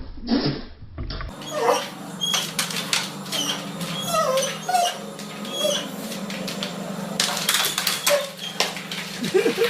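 A dog whimpering and yipping in many short, high squeaks that slide up and down, over a steady low hum.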